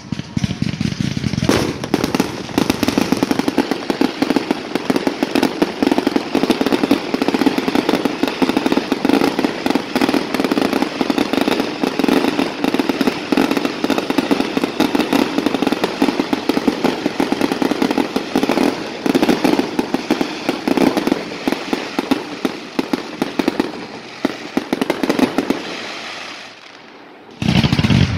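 Fireworks going off in a rapid, continuous barrage of bangs. Near the end it breaks off for a moment, then starts again.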